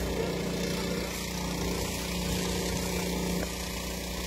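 An engine running steadily at an even speed, with a steady hiss over it.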